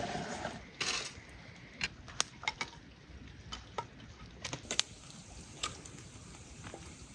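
Dry sticks of firewood knocking and clattering as they are laid over a smouldering campfire: a scattered run of sharp clicks and knocks, most of them in the first six seconds.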